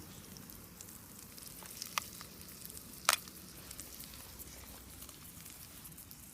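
An egg frying in butter in a small pan over a campfire: a steady soft sizzle with a couple of sharp pops, the loudest about three seconds in.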